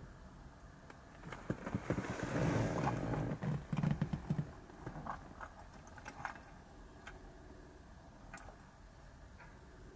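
Rustling and handling knocks of a person moving in a car seat and lifting a mobile phone to the ear, loudest between about one and a half and four and a half seconds in, then a few faint clicks.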